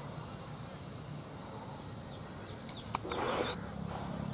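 Open-air ambience with faint bird chirps; about three seconds in, a sharp click is followed by a brief burst of noise, and then a low steady hum sets in.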